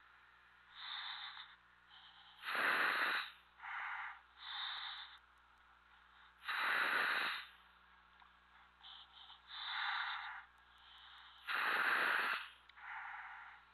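A commercial diver's breathing in a surface-supplied helmet, heard over the dive communications line: a slow cycle of rushing breaths through the demand valve and exhaust, the loudest about every four to five seconds, over a faint steady hum.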